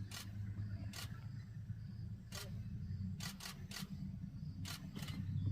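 Camera shutter firing about eight single shots at irregular intervals, with a quick run of three near the middle, over a low steady hum.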